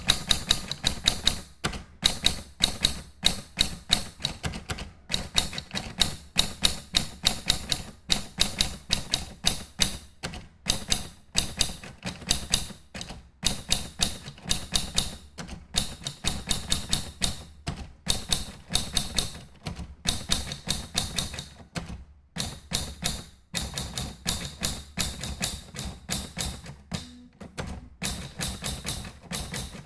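Manual typewriter being typed on: quick runs of key strikes, several a second, broken by short pauses.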